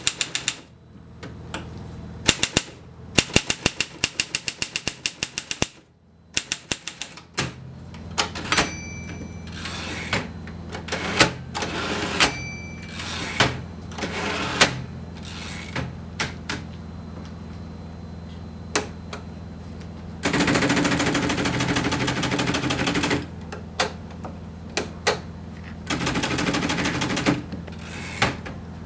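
Alpina manual typewriter being worked: keys and mechanism clicking, with a fast even run of clicks early on, two short bell-like rings about 9 and 12 seconds in, and two longer rattling stretches near the end. A steady low hum runs underneath from about seven seconds in.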